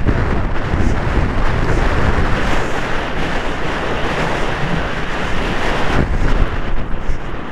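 Wind buffeting a helmet camera's microphone at a gallop on a polo pony: loud, steady rushing noise, heaviest in the low end.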